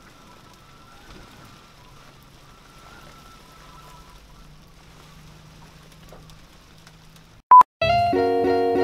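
Light rain falling on a small boat's windscreen and cabin, faint and steady. Near the end a short, loud beep, then acoustic guitar music starts.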